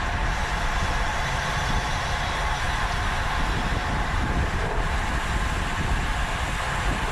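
Steady rushing wind buffeting a bicycle-mounted camera's microphone while riding, with tyre and road noise underneath and no single distinct event.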